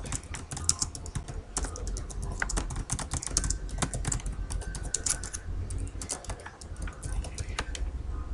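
Computer keyboard being typed on: an irregular run of quick key clicks as a sentence is typed, over a steady low hum.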